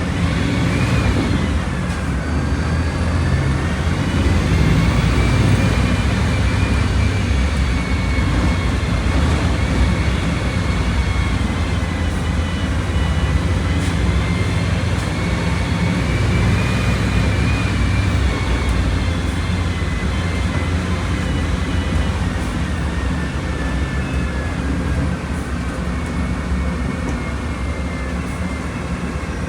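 Volkswagen Volksbus 17.230 Euro 6 bus's diesel engine running steadily, with a high whine that slowly rises and falls in pitch.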